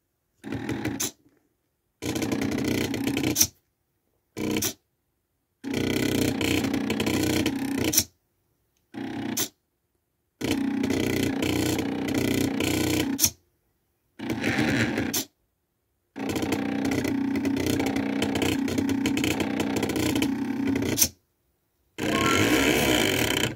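Small stepper motors salvaged from CD drives buzzing as a pen plotter draws. The sound comes in about nine bursts of a second to five seconds each, each one starting and stopping abruptly, with dead silence between them.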